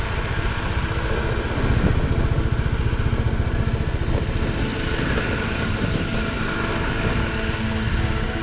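BMW G310GS motorcycle's single-cylinder engine running steadily while riding along a gravel track.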